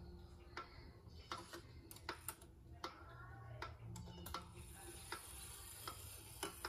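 Kieninger 8-day mechanical clock movement ticking quietly, an even tick-tock of sharp clicks about twice a second.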